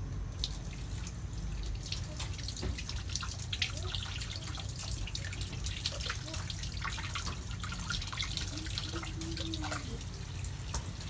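Water running from a tap and splattering onto hands and into a sink during handwashing, starting about half a second in after the tap is turned on.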